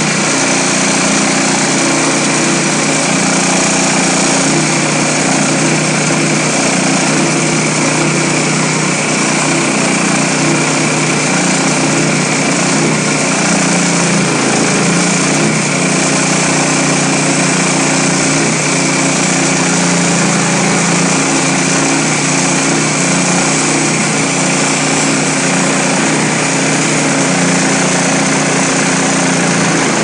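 Woodland Mills HM126 portable bandsaw mill sawing through a black walnut log: its small gas engine runs steadily under load while the band blade cuts, with a steady high whine over the engine.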